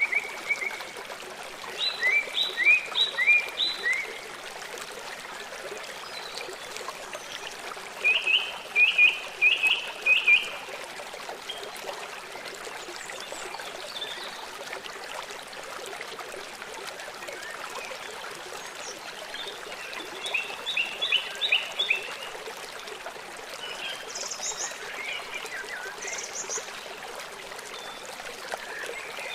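A steady running stream with birdsong over it. A bird sings quick phrases of four or five short descending notes, loudest near the start, about a third of the way in, and around two-thirds through, with fainter chirps in between.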